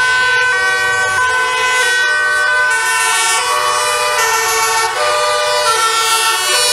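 Several emergency-vehicle sirens sounding at once from a passing convoy of fire engines and police vehicles: loud, overlapping steady notes that switch back and forth between pitches in steps.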